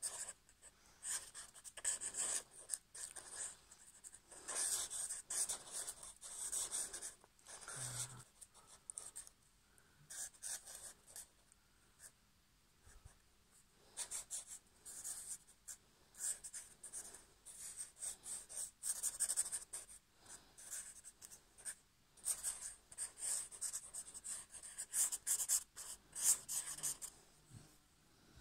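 Black felt-tip marker scratching across paper in quick scribbling strokes, coming in bursts with a few short pauses.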